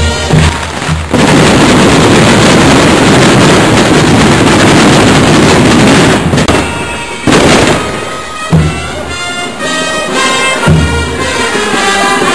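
A long run of firecrackers going off in a dense, continuous crackle for about six seconds, then a shorter burst after a brief gap. Brass band music comes back near the end.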